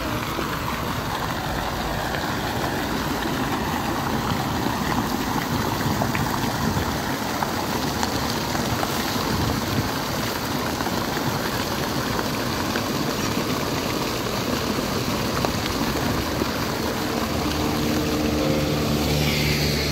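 Steady splashing of fountain jets falling into a shallow basin, with a dog wading through the water. A low engine hum joins near the end.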